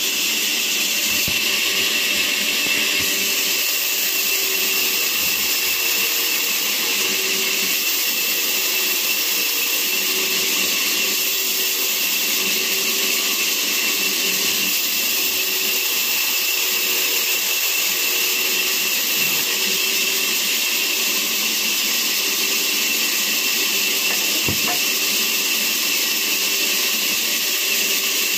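Vertical band saw (aara machine) running steadily while its blade rips lengthwise through a log. It makes a constant hiss with a high, steady whine.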